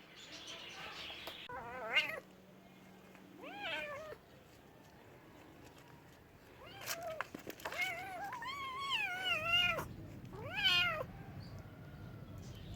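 A domestic cat meowing four times: two short meows, then a long meow of about two seconds whose pitch wavers up and down, then a last short one. A brief rushing noise comes just before the first meow.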